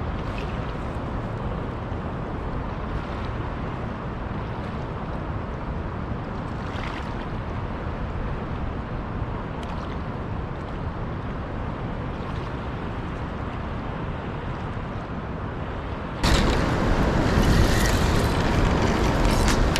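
Steady rush of fast river water mixed with wind buffeting the microphone. About sixteen seconds in, a louder, brighter rush cuts in suddenly.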